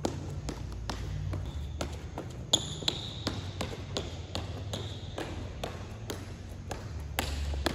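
Quick footsteps of sneakers tapping on a plastic tile court through agility-ladder footwork, a light sharp tap about two to three times a second.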